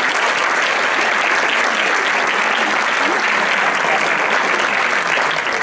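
A crowd applauding steadily, dense even clapping.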